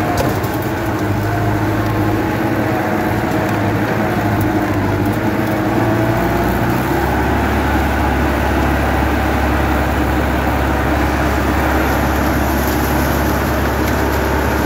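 Sonalika 75 HP diesel tractor running with its rotavator working the soil, heard from the driver's seat. About halfway through, the engine note drops and settles into a deeper, steadier drone.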